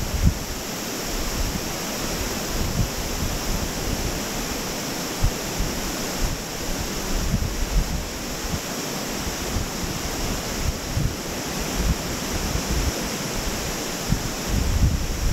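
Glacial river rushing over a rocky bed below the bridge, a steady hiss of water, with wind buffeting the microphone in frequent short low thumps.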